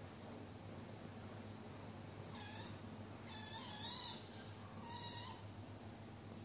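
A kitten mewing: a few short, high-pitched mews one after another over about three seconds.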